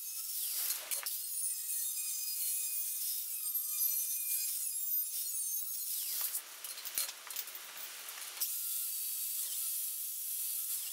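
Angle grinder running against a thin steel strip, trimming it to a scribed curved line, with a steady high whine. A little past halfway the sound changes for about two seconds, then the whine returns.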